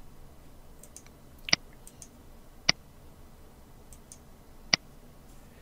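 Computer mouse clicking three times, single sharp clicks a second or two apart, with a few fainter ticks between.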